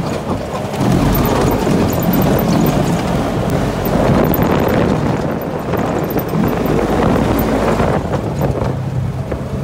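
Side-by-side UTV engine running steadily while driving at speed on a dirt road, mixed with road and wind noise.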